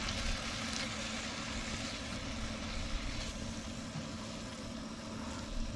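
Steady low hum of a pellet grill's fan running, over an even hiss.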